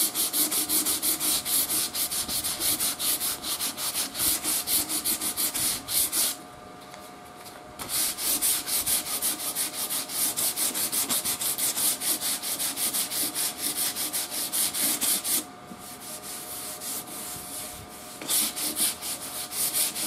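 220-grit sandpaper rubbed back and forth by hand over the old shellac finish of a wooden radio cabinet, in quick, even strokes, about three a second; the sanding breaks the glaze of the crazed shellac without taking the finish off. It stops for about a second and a half a third of the way in, and for a few seconds near the end, then starts again.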